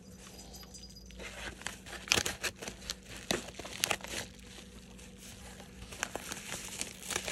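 Kraft paper padded mailer being cut open with scissors and handled: sharp snips and crackles of stiff paper, in a run through the first half, then a short lull, then more crinkling near the end.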